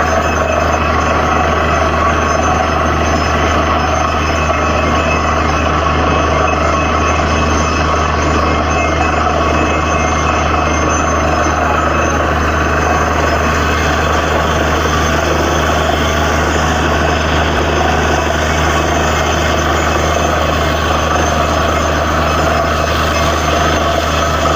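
Borewell drilling rig running steadily: a loud, unchanging engine-and-machinery noise with a deep hum underneath.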